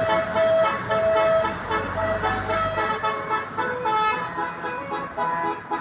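Multi-tone telolet bus horn playing a tune: a run of short, stepped notes that change pitch several times a second.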